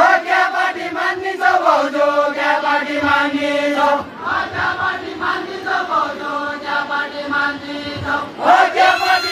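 A group of men singing a deuda folk song together in long, held, chant-like phrases. A new phrase starts with a rising swell about a second before the end.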